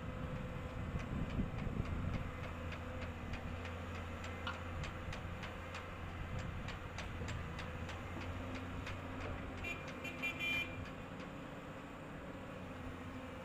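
Heavy construction machine's diesel engine running steadily at work. A run of rapid, evenly spaced ticks sounds through the middle, and a short high-pitched beep comes about ten seconds in.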